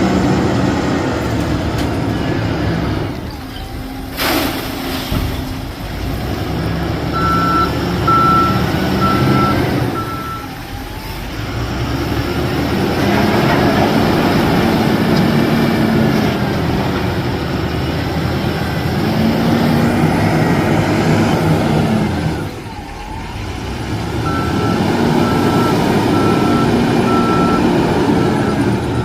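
Wheel loader's diesel engine working under load, its pitch rising and falling in repeated revs, with a reversing alarm beeping in two runs. A sharp clank about four seconds in.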